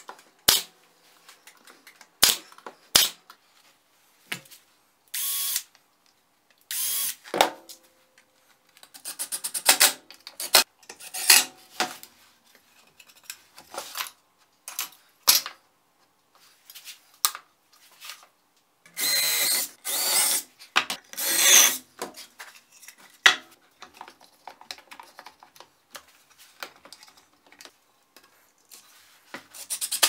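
A power drill running in short bursts of a second or so, among sharp clicks and knocks of wooden parts being handled.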